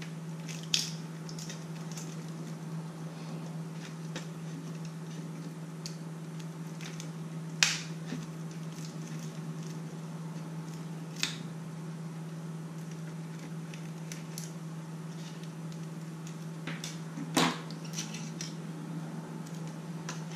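Hands and small tools working on a plastic drone body: scattered clicks and taps of small hard parts being handled, four of them sharper, over a steady low hum.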